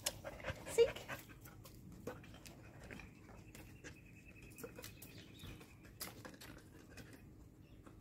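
An Australian shepherd sniffing at the ground in a run of short, quick sniffs, louder in the first second or so.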